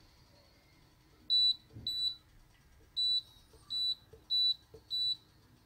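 Redmond multicooker's control panel beeping as its buttons are pressed: six short, high beeps at uneven intervals, each with a faint click of the button, while the steam mode and its cooking time are being set.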